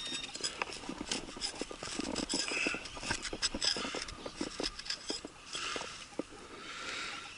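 Hand digger scraping and chopping into hard ground while digging out a metal-detector target: a quick, irregular run of short scrapes and knocks.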